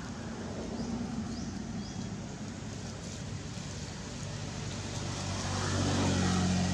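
Steady engine hum of a motor vehicle, growing louder over the last couple of seconds.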